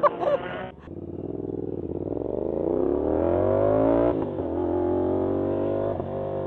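CFMOTO 450SR motorcycle's parallel-twin engine accelerating. Its pitch rises for about three seconds, drops suddenly at a gear change, then holds steady, with another small drop near the end.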